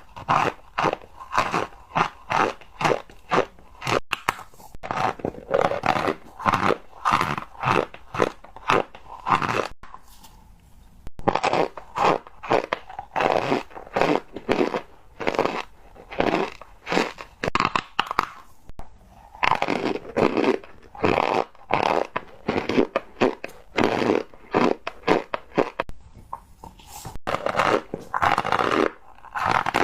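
Close-miked chewing of cornstarch: a steady run of dry crunches, about two a second, with a few brief pauses.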